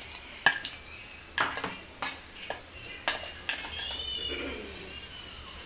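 A steel spoon clinking and scraping against a steel plate and the rim of an aluminium cooking pot as pickle is spooned into the rice, giving a string of sharp clinks about once or twice a second.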